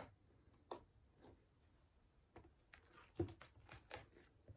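Hand pressing and squeezing glossy slime in a plastic tub: faint sticky squishes and small pops, about half a dozen separate ones, the loudest a little past three seconds in.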